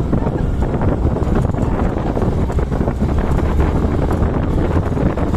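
Wind buffeting the microphone over the steady low running of a motorcycle engine riding along a rough dirt track.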